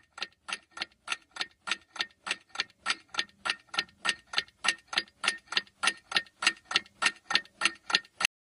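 Clock-ticking countdown sound effect: quick, even ticks, about three or four a second, growing louder over the first few seconds.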